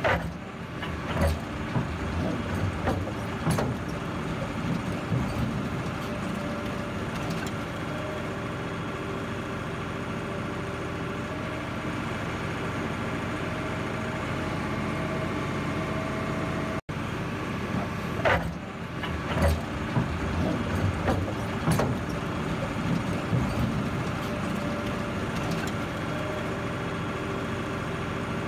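Diesel engines of construction machines, a skid-steer loader and backhoe loaders, running steadily, with scattered knocks and clanks that come thickest in the first few seconds and again after about 18 seconds.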